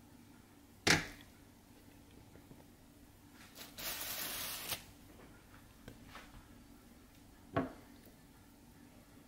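Handling noises as seasoned raw chicken wings are laid into an air fryer's nonstick basket: a sharp knock about a second in, a brief rustling hiss around four seconds, and another knock near eight seconds.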